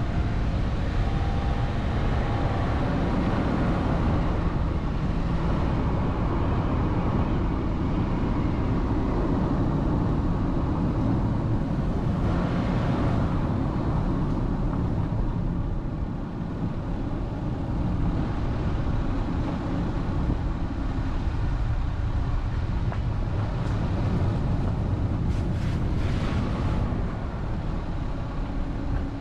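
A vehicle travelling along a road, heard as a steady low rumble of running and road noise. Two brief rushes of hiss rise above it, one about halfway through and one near the end.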